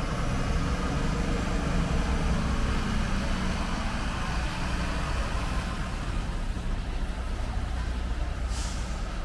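Truck engines idling, a steady low rumble, with a short hiss near the end.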